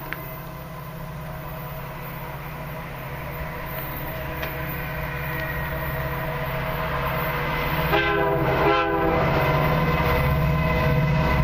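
Diesel freight train approaching, its low rumble growing steadily louder, led by CN SD75I locomotive 5719, which sounds its air horn in two short blasts about eight seconds in.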